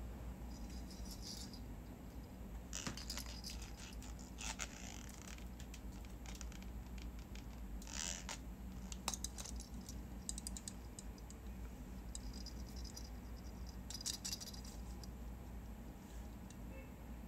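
Quiet room with faint scattered rustles and soft clicks coming in short clusters every few seconds.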